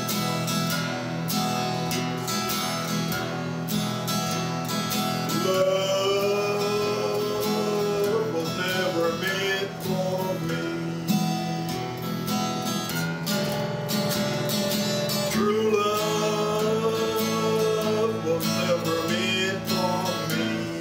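Acoustic guitar strummed in a steady rhythm, accompanying a man singing a blues song with long held notes.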